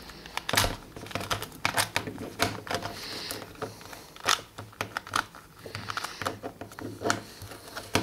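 Plastic Rubik's cube being turned by hand: an irregular run of light clicks and clacks, several a second, as its layers are twisted.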